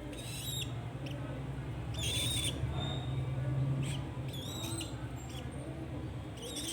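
Pigeons cooing softly, with about five brief high chirps over a low steady hum.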